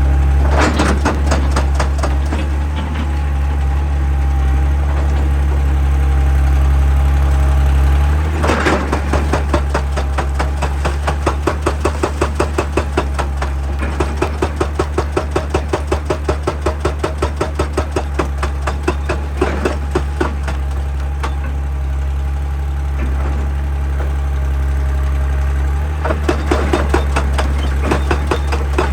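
Excavator diesel engine running with a steady low drone while its hydraulic rock breaker hammers rock in rapid, even blows. The blows come in runs: briefly near the start, a long stretch from about eight seconds to about twenty, and again near the end.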